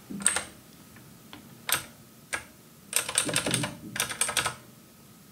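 Computer keyboard keys being pressed: a few single keystrokes, then two quick runs of presses about three and four seconds in.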